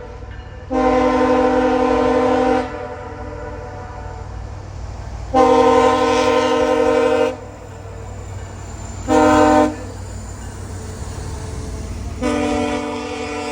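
Freight locomotive air horn sounding the grade-crossing signal: two long blasts, one short, then a long one that is still going at the end, each a chord of several tones. A steady low rumble from the approaching train runs underneath.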